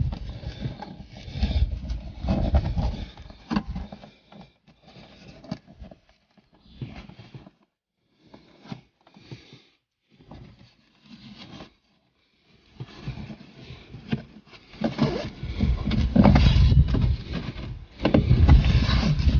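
Irregular scraping and rustling of hands pushing a dash-cam cable in under a car's interior plastic trim, with a few near-silent gaps in the middle and busier, louder handling near the end.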